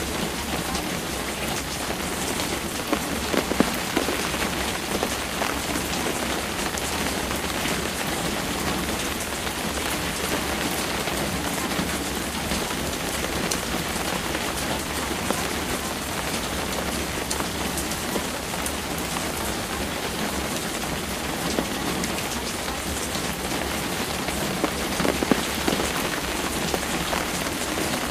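Steady rain falling: an even hiss made of many small drop ticks, with a few louder drops now and then.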